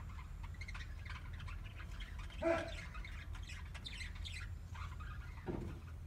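Budgerigars chirping and chattering with many short, quick calls, a louder, lower squawk about two and a half seconds in and another near the end, over a steady low rumble.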